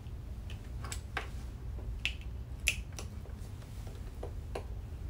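Small sharp clicks of a screwdriver working the screws of a plug-in screw terminal block, tightening a wire into it, about eight in all and loudest about two and a half seconds in. A steady low hum runs underneath.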